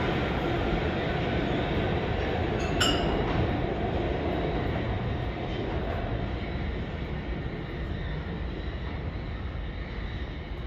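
New York City subway train running past the platform, its noise steadily fading as it pulls away, with a brief sharp high squeal from the wheels or brakes about three seconds in.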